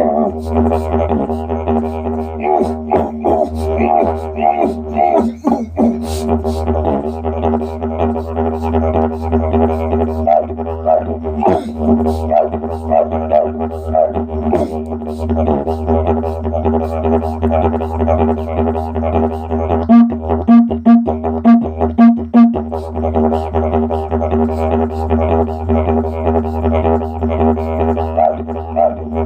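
Didgeridoo drone with its overtones shifting and small rhythmic accents throughout. About two-thirds of the way in, the drone is chopped into a quick run of short pulses for a couple of seconds, then carries on steadily.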